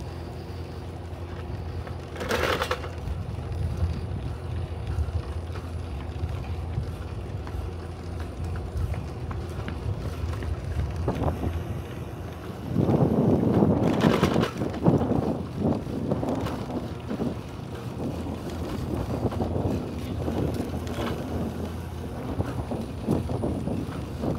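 Wind buffeting the camera's microphone while cycling, over a steady low hum. It grows louder and rougher from about halfway, with the strongest gusts shortly after.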